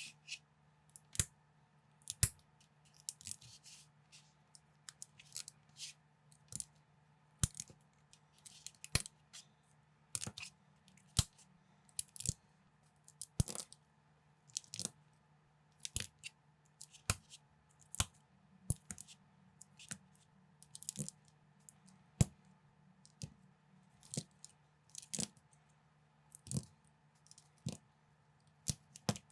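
Plastic LEGO-style bricks being handled and snapped together: sharp, irregular clicks about once or twice a second, with brief rustles of pieces being sorted between them, over a faint steady hum.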